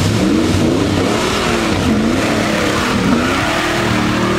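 Off-road 4x4's engine revving up and down several times under load as it drives through mud, its pitch rising and dipping about once a second.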